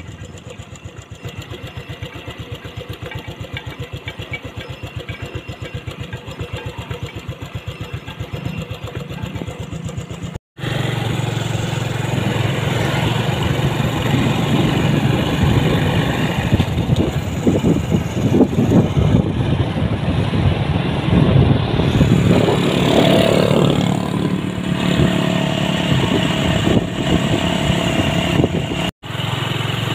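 Motorcycle engine running, with an even putter for about the first ten seconds. After a brief dropout it turns louder and rougher, mixed with a rushing noise as the bike rides along.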